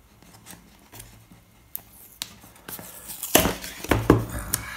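Cardboard phone box handled and opened by hand: a few light taps and clicks, then about three seconds in a louder scraping rustle of cardboard as the lid slides off.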